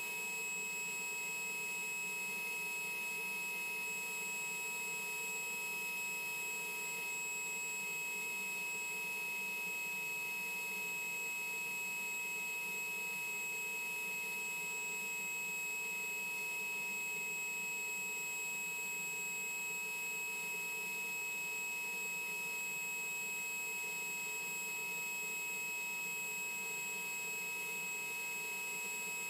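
Einhell Pressito hybrid compressor running steadily, sucking the air out of an inflatable beach ball through its hose. It is an even motor hum with a steady high-pitched whine over it.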